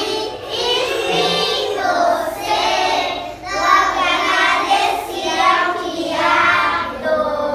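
A group of young children singing a song together in unison, in short phrases with brief pauses between them.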